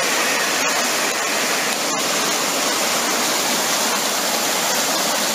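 Fast-flowing river water rushing past stones on the bank: a steady, loud, even rush of water.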